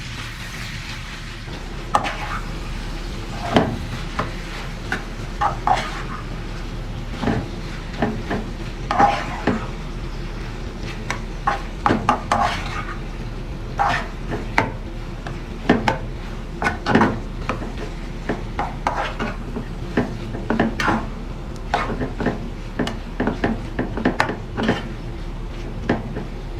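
A metal utensil stirring in a pan, with irregular clinks and knocks against it over a low steady hum.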